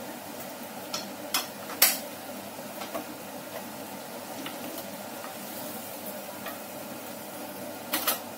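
Tomato soup simmering in a saucepan on a gas hob: a steady bubbling hiss. A few sharp clicks cut through it, the loudest about two seconds in, with another pair near the end.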